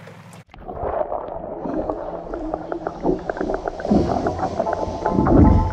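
Underwater sound from a camera held below the lake surface as a redear sunfish is released by hand: muffled low sloshing and rumbling water with many crackling ticks, swelling louder twice near the end. It follows a brief low hum that cuts off about half a second in.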